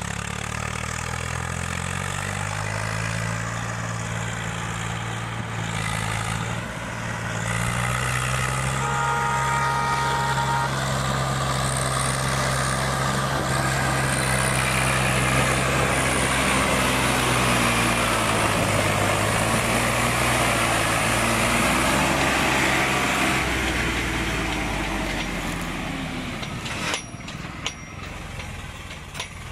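Swaraj 855 tractor's diesel engine running under heavy load as it tows an overloaded trailer, growing louder as it approaches and passes close by, then fading away near the end.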